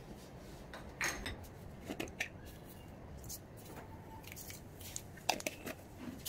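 Mustard seeds tipped from a spoon into hot oil in a stainless steel kadhai: scattered light clicks and ticks of the spoon and seeds against the pan, with the oil beginning to sizzle around the seeds as the tempering starts.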